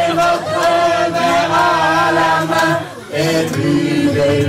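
A group of people singing a drinking chorus together in long held notes. It breaks off briefly about three seconds in, then starts again.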